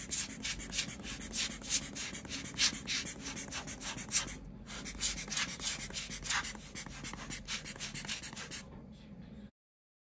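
Rubber air blower bulb squeezed over and over, puffing short hisses of air several times a second to blow dust off camera lenses. The puffs stop near the end and the sound cuts off.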